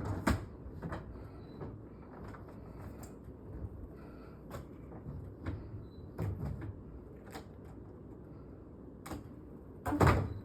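Scattered knocks and clunks of a window sash and a window unit's bracket being handled and fitted together, about one every second, with the loudest heavy knock near the end.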